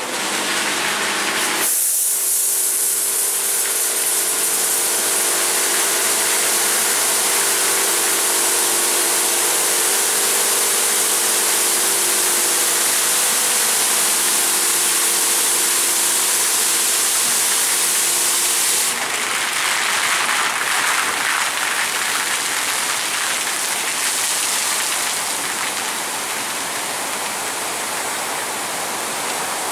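Water jets of a WashTec Combiwash gantry car wash spraying a car, a loud steady hiss that starts suddenly a couple of seconds in, with a steady machine whine underneath. About two-thirds of the way through, the whine stops and the spray changes to a lower, duller hiss.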